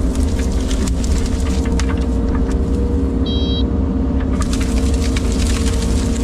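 Excavator's diesel engine running steadily under load, with snapping and crackling of branches as the machine digs into a brush pile; the crackling gets heavier from about four seconds in. A brief high squeal sounds a little past three seconds.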